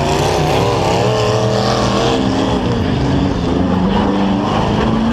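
Several demolition-derby trucks' engines revving together, their pitches rising and falling over each other, over a steady low engine drone.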